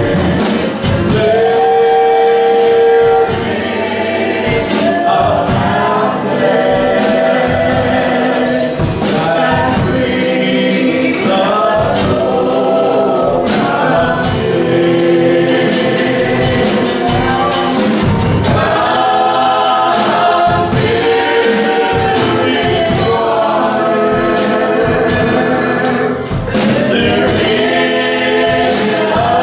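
Small gospel vocal ensemble of men and women singing in close harmony through microphones, with held notes that change every second or two, accompanied by a strummed acoustic guitar.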